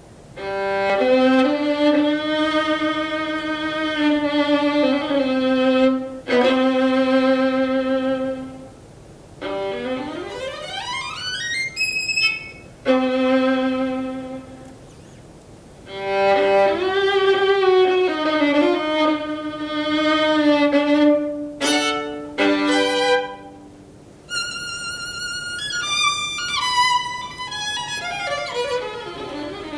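Solo violin played with long held notes and short pauses. About ten seconds in comes a long upward slide to a very high pitch, and near the end a run of high notes steps downward.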